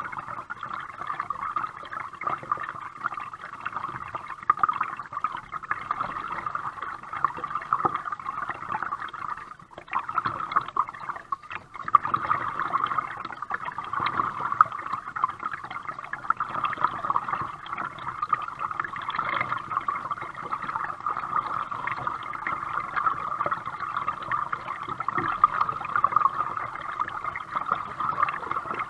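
Water gurgling and lapping against a kayak hull as it moves through the water, a steady wash with a brief lull about ten seconds in.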